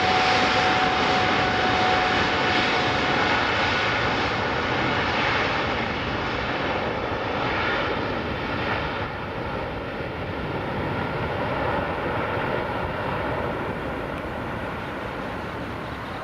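Jet engines of a Boeing 787-8 Dreamliner at takeoff thrust: a steady broad rush with a faint high whine in the first few seconds. It grows fainter and duller as the aircraft climbs away.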